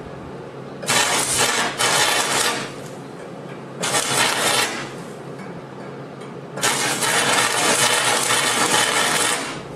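Stick-welding arc from a wet 6011 electrode cutting 3/16-inch steel plate, crackling and hissing in four bursts. The arc goes out and is struck again between bursts, and the last burst holds for nearly three seconds.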